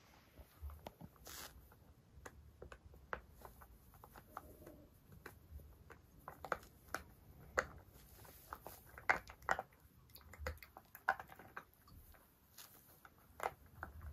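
A puppy chewing and gnawing a spiky rubber ball: faint, irregular small clicks and squishes of teeth on rubber.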